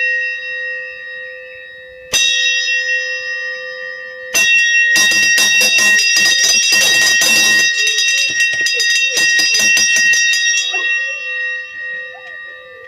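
Hanging metal bell ringing: struck once about 2 seconds in and again about 4 seconds in, then rung rapidly for about five seconds, its clang fading near the end.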